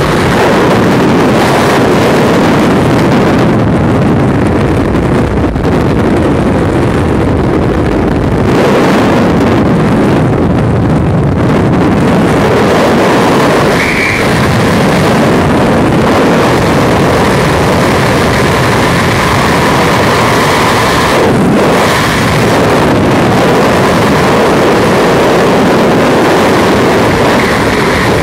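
Loud, steady rush of freefall wind buffeting the skydiver's camera microphone.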